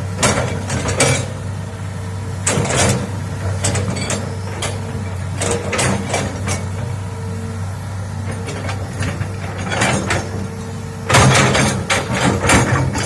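Hitachi hydraulic excavator's diesel engine running steadily, with repeated sharp knocks and clanks from the working machine; a dense run of clanks comes near the end.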